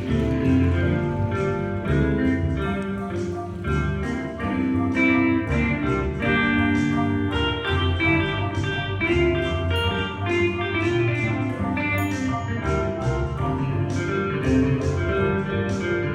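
Live band music: an electric guitar to the fore over bass, piano and drums keeping a steady beat on the cymbals.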